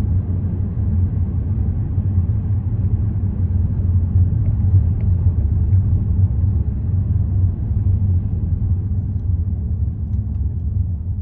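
Steady low rumble of a car being driven: road and engine noise, easing off slightly near the end.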